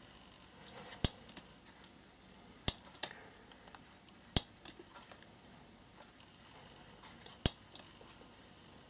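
Four sharp single clicks, irregularly spaced a second and a half to three seconds apart, over faint room hiss, as the LED light set's plastic battery box is handled.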